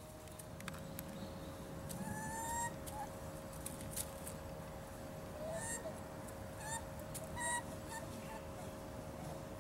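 Bush dogs giving short, high squeaky contact calls, several in a row from about two seconds in, over a steady faint hum.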